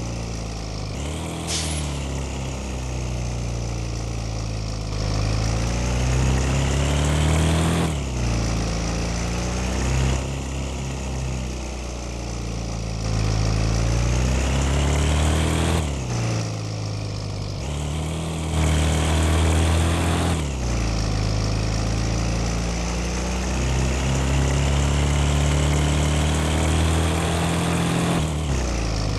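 Bus engine pulling away and accelerating through the gears. Its pitch climbs steadily, then drops at each gear change, several times over. A brief high whistle sounds about a second and a half in.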